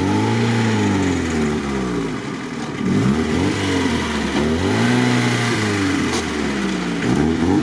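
A VAZ-2101 Lada's four-cylinder engine is revved up and down over and over, rising and falling about every second and a half, as it drags the car along at a crawl under heavy load. The clutch is slipping and overheating, to the point of burning.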